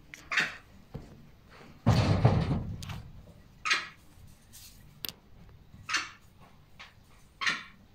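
Wire-mesh cage rattling and thudding as a young vervet monkey climbs and jumps on it. There is one loud, heavy rattle about two seconds in, and shorter scraping rattles four times.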